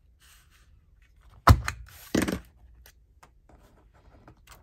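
Two thumps on a work surface while a handmade journal is handled: a sharp one about one and a half seconds in and a longer, rustling one just after, amid faint paper and fabric rustling.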